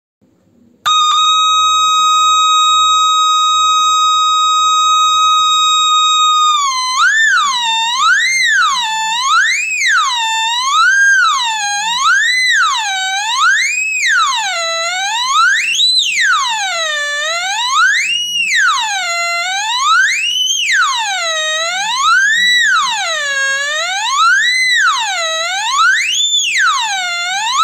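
A 555-timer oscillator circuit driving a small loudspeaker switches on about a second in with a steady electronic tone. From about seven seconds the pitch swoops up and down about once every second and a half, unevenly, as the potentiometer is turned back and forth.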